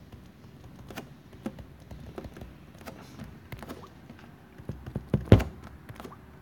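Light, irregular taps and clicks of a stylus writing on a tablet, several a second, with one louder knock about five seconds in.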